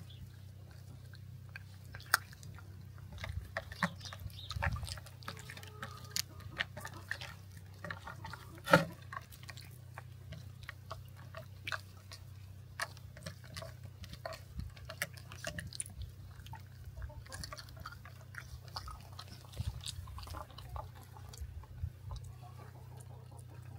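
A raccoon gnawing and chewing a hard snack: many small irregular crunches and clicks over a low steady hum, with one louder knock about nine seconds in.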